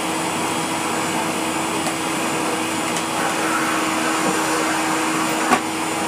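Hoover Compact Electronic S3462 cylinder vacuum cleaner running steadily, a constant hum over the rush of air. Near the end there is a single click as a hand presses the controls on top of the machine.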